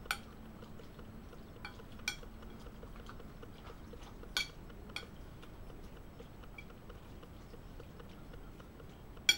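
Metal spoon clinking against a glass bowl as a salad is stirred: a handful of separate clinks spread a second or more apart, the loudest near the end.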